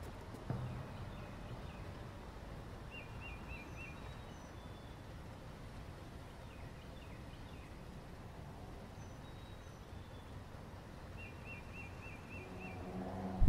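Outdoor background noise, a low steady rumble, with small birds chirping: two runs of quick repeated chirps and a few fainter high ones. Near the end a low pitched hum swells up and breaks off in a sudden loud hit.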